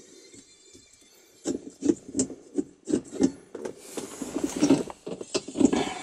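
Hands twisting and working a Raceseng shift knob onto the gear lever's threaded shaft: a run of irregular rubbing and scraping handling noises with small clicks, starting about a second and a half in.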